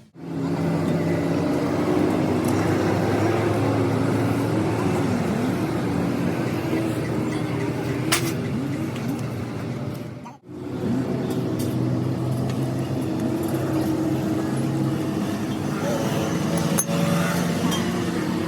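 A car engine running steadily. About ten seconds in there is an abrupt break where the recording cuts, and an occasional sharp click or clink.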